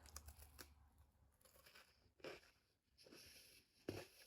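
Near silence: quiet room tone with a few faint, soft knocks.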